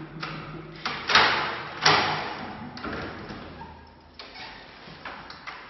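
A key being worked in a front door's lock, with several clicks and two loud clunks of the bolt a little over a second and about two seconds in, then lighter clicks as the door is opened.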